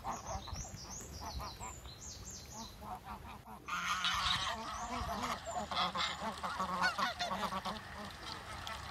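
A flock of domestic geese honking, many calls overlapping, growing louder and denser about halfway through. High, falling chirps from smaller birds sound over the first couple of seconds.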